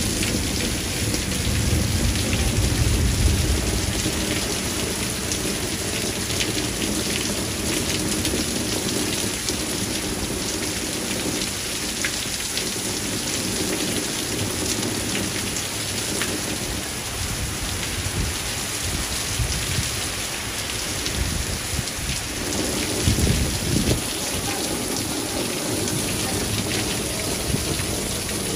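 Torrential downpour hissing on grass, pavement and a concrete step, with a stream of water pouring off the roof edge where the gutters cannot keep up. Low rumbles of thunder come about two seconds in and again about 23 seconds in.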